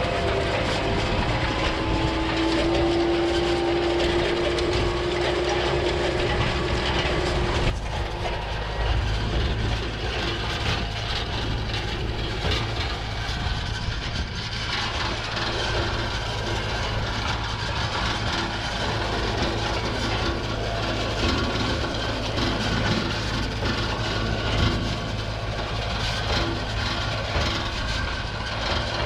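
Kubota M4 tractor engine running steadily under load while pulling a Great Plains 606NT no-till seed drill, with the drill's rattle and clatter over the engine. About 8 seconds in, the sound shifts suddenly and gets slightly quieter.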